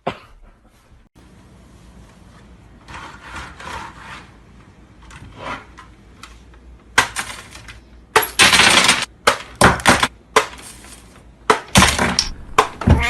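A series of loud, sudden clattering crashes, each a second or less long, coming thick in the second half after quieter knocks and rustles at the start.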